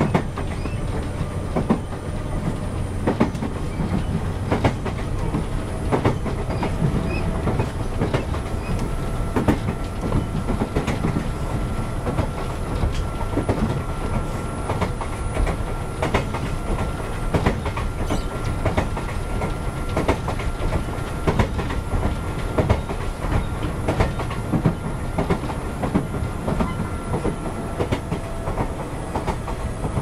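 Toyama Chihō Railway 10020-series electric train, on ex-Eidan 3000-series running gear, heard from inside the car while running between stations: a steady rumble of wheels on rail with repeated rail-joint clacks and a faint, steady high-pitched whine.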